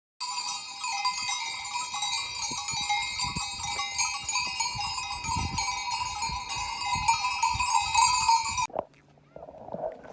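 Many livestock bells clanging together in a continuous metallic jangle of overlapping ringing tones, from a grazing herd on an alpine pasture; it cuts off abruptly near the end.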